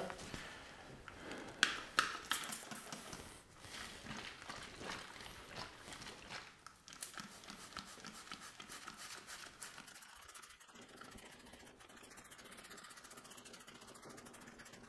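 Hand trigger spray bottle spritzing cleaner onto an aluminium engine block: a series of short, faint spray hisses, the loudest about two seconds in.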